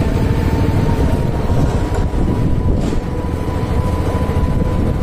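Motorcycle running at low riding speed, heard with a heavy, fluttering wind rumble on the body-mounted microphone and a thin steady whine above it.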